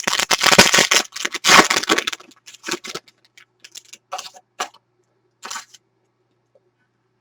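Trading card pack wrapper crinkling and tearing open for about two seconds. Scattered light rustles and clicks follow as the cards are handled, dying away a little before six seconds in.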